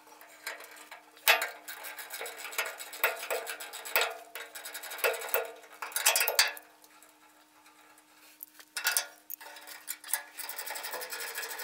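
Metal hand tool clinking and knocking on the set screws and hub of a cement mixer's cast drive pulley on its rusty jack shaft as it is worked loose: irregular sharp clicks, with a quieter pause about seven seconds in.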